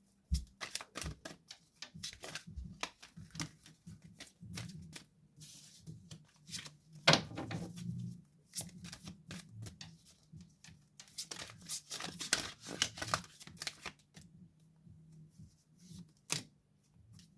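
Tarot cards being handled and shuffled: a run of irregular quick flicks and taps, thinning out near the end.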